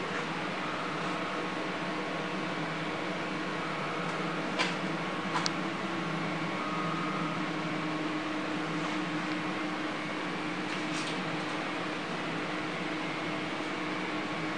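Steady machine hum with several held tones, from equipment running at the CNC router. A few light clicks come about five seconds in.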